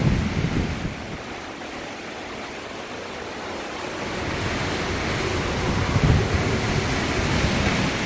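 Hurricane wind gusting, with rumbling wind buffets on the microphone. It eases about a second in, then builds again from about four seconds, with another hard buffet about six seconds in.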